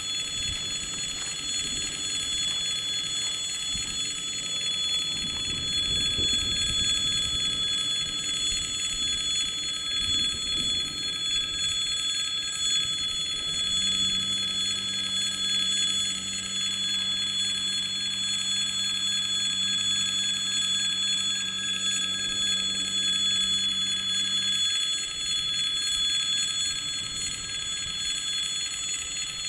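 Level-crossing warning bell ringing continuously. A steady low hum comes in midway and stops about ten seconds later.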